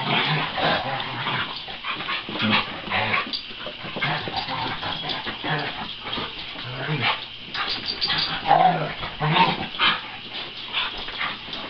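Two dogs play-fighting, making short, irregular yips and whiny play noises throughout.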